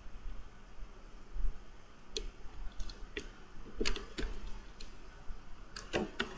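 Computer keyboard keys being pressed: about ten short clicks, starting about two seconds in, some coming in quick pairs.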